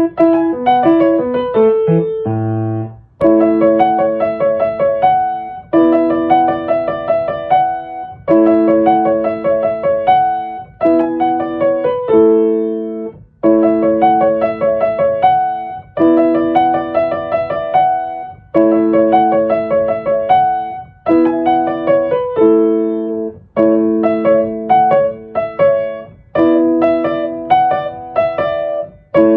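Background music: a piano or electric piano plays a repeating phrase of chords and quick melody notes, about every two and a half seconds.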